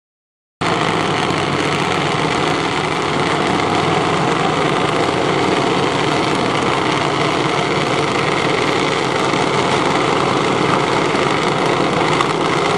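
Junior dragsters' small single-cylinder engines running steadily at idle, starting abruptly about half a second in.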